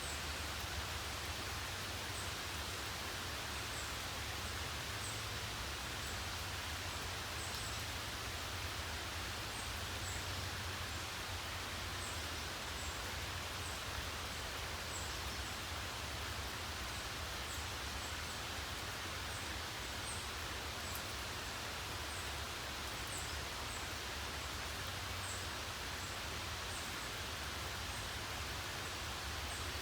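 Steady rain falling, an even hiss with a low rumble underneath. Short, faint high chirps recur about once or twice a second over it.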